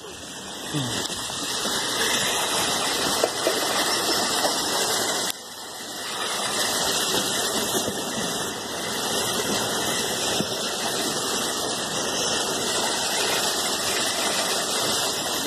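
Floodwater rushing steadily into a street storm drain, an even hiss, briefly quieter about five seconds in.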